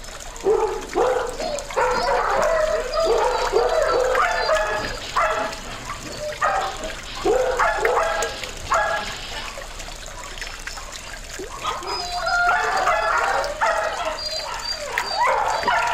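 Dogs at a breeding kennel barking and yapping in irregular, overlapping bursts, easing off for a couple of seconds past the middle, over the steady trickle of a small garden-pond fountain.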